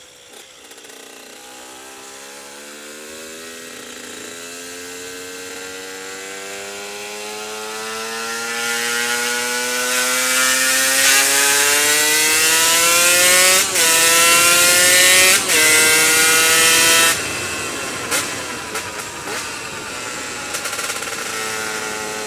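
KTM EXC 125's single-cylinder two-stroke engine under acceleration, its note climbing slowly in pitch and growing louder, with two short breaks like quick gear changes. About seventeen seconds in the throttle closes and it falls back to a lower, steadier note.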